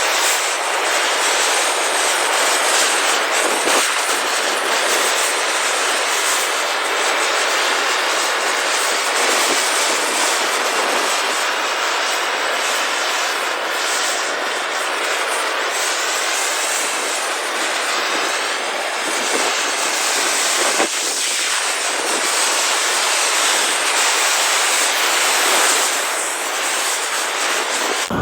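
Gas blowtorch burning steadily, a loud even hissing roar as its flame chars the surface of larch boards.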